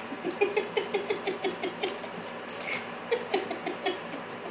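A puppy's paws and claws pattering quickly on a laminate floor as it scampers about, in two quick runs of taps.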